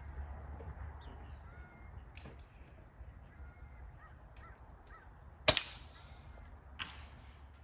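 A single air rifle shot: a sharp crack about five and a half seconds in, then a fainter crack a little over a second later.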